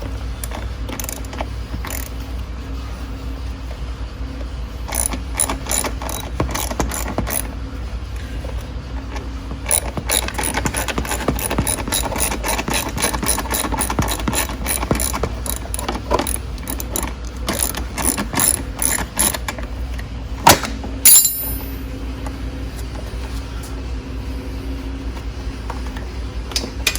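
Socket ratchet clicking in quick runs as a 10 mm body bolt is backed out, with a pause between runs. Two sharp knocks about twenty seconds in.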